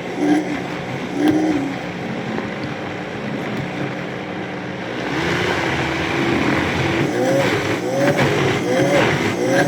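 High-powered blender running, blending hummus. Its motor hum gets louder about halfway through, then its pitch dips and rises again about once a second as the thick mix is worked through the blades.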